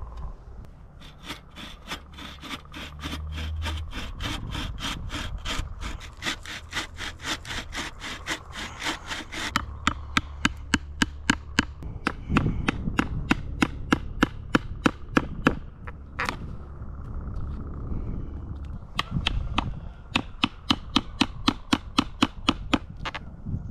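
Hand saw cutting into the top of an upright wooden log post, a steady back-and-forth rasp of about three to four strokes a second. The strokes grow louder partway through, stop for a couple of seconds after about two-thirds of the way, then resume.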